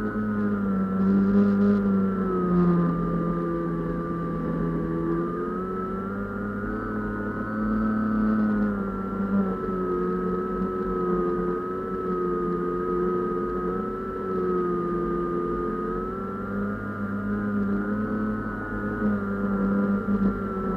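A small UAV's motor and propeller heard from a camera mounted on the aircraft in flight: a steady buzzing drone whose pitch rises and falls gently every few seconds as the throttle changes.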